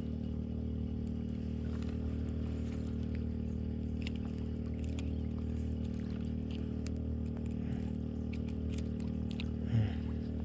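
A steady low motor hum runs throughout, with scattered light clicks and ticks as a soft-plastic lure is worked free of a fish held in a metal lip gripper, and one short louder knock near the end.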